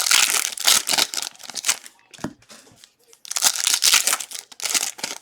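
Foil wrappers of football card packs being torn open and crinkled, in two bursts of crackling, the second starting a little over three seconds in.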